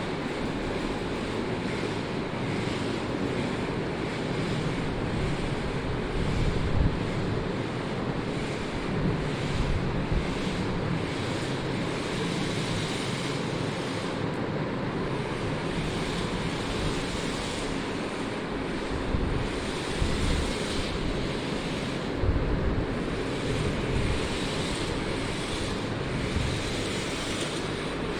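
Steady rushing noise with low rumbling gusts every few seconds, like wind buffeting the microphone.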